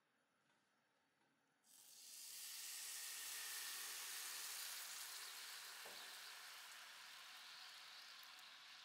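Water poured onto sugar in a hot nonstick frying pan sizzles. It starts suddenly about a second and a half in, then hisses steadily and slowly fades as the sugar syrup begins to bubble. This is the first stage of cooking caramel.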